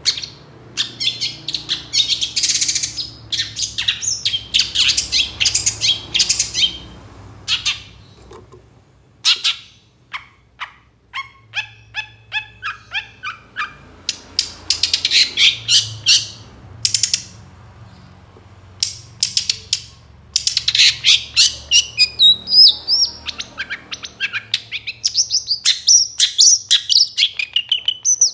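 Long-tailed shrike singing a rapid, harsh chattering song of scratchy phrases and quick runs of sharp clicking notes, broken by short pauses. Near the end it becomes a run of quick tumbling whistled notes.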